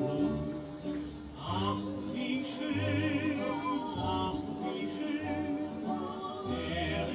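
Background music with a singing voice holding long, wavering notes over a recurring low bass pulse.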